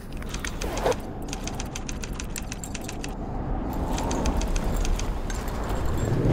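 Metal climbing hardware on a harness, carabiners clinking and rattling in quick runs of clicks, over a steady low rumble that slowly grows louder.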